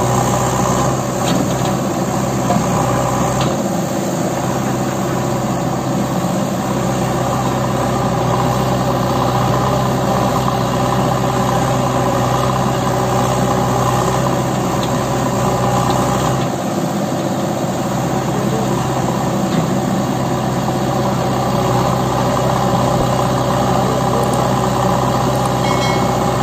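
Diesel engines of a JCB backhoe loader and a Swaraj 744 FE tractor running steadily while the backhoe arm works. The engine note stays even, with brief dips in its deepest tone about four seconds in and again past the middle.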